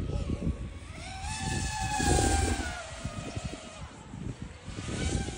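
Small multirotor drone's electric motors whining in flight overhead. The pitch rises about a second in, holds, then slides down again as the throttle changes. Low wind rumble on the microphone runs underneath.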